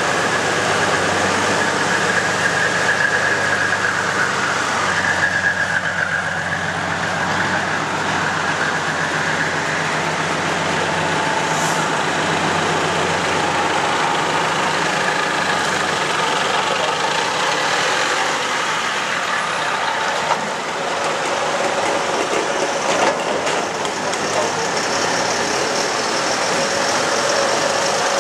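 Heavy diesel trucks running as they drive slowly past one after another: an orange truck with a front-mounted rotary snow blower, then an IFA W50 dump truck approaching and passing close by.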